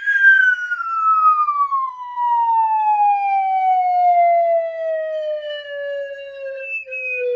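A sound effect: one long tone that starts suddenly and glides slowly and steadily down in pitch, like a descending whistle.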